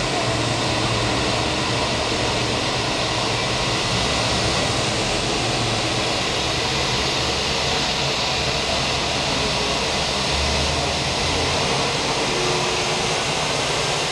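Boeing 757-200's jet engines running at taxi power, heard as a steady, even rushing whine that does not change.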